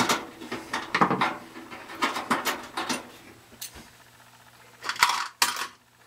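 Metallic clinks and scrapes from screws, a small bracket and hand tools being worked against the sheet-metal blower shroud of a Suburban RV furnace. There are several separate sharp clinks, then a louder scrape about five seconds in.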